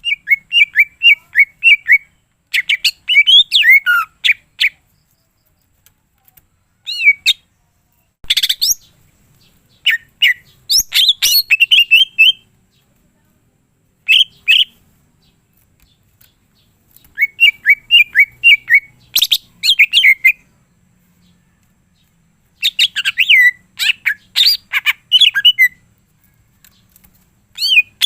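Cucak ijo (green leafbird) singing in loud bursts of rapid chirping and warbling phrases, each a second or two long with short pauses between, its song full of mimicked calls.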